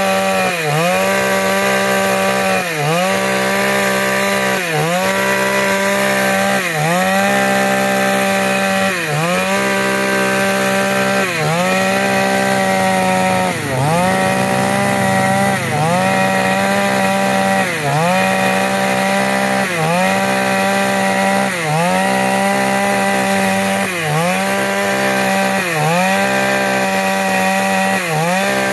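Chainsaw running at high revs while cutting wood lengthwise, its pitch dipping briefly about every two seconds.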